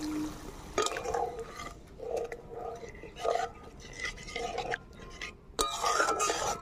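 A spatula stirring and scraping wet curry masala in a metal kadai, in a series of separate strokes about once a second. Near the end comes a louder clatter of the spatula against the pan.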